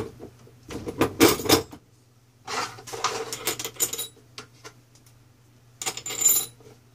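Steel box tubing, bolts and washers clinking and knocking against each other and the workbench as the parts are handled and fitted together, in three short bursts of clatter: about a second in, around three seconds in, and near the end.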